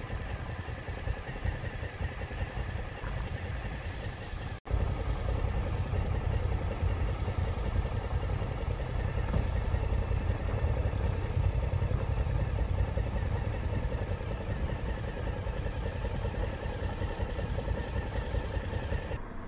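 Motorcycle engine idling, a steady low rumble. The sound cuts briefly about four and a half seconds in and comes back louder.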